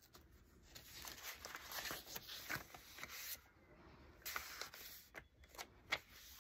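Faint rustling of a thick handmade paper junk journal's pages as they are turned and smoothed by hand, in two stretches with a short lull between.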